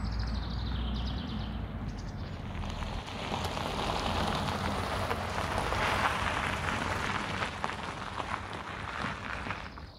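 Tesla Model Y electric car rolling slowly past on asphalt, its tyre hiss swelling to a peak about six seconds in and then fading as it moves away.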